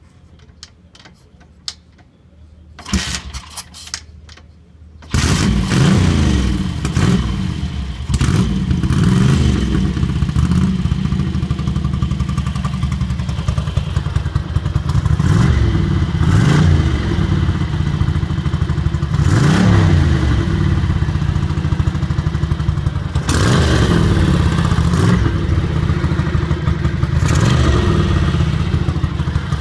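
Ducati MHR900's air-cooled bevel-drive 90° V-twin being started. A few clicks and short noises come first, then the engine catches about five seconds in and keeps running, blipped up and back down several times.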